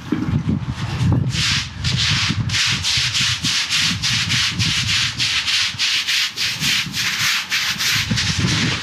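Stiff-bristled yard broom sweeping wet, soapy block paving in brisk, even strokes, between two and three a second, starting about a second in.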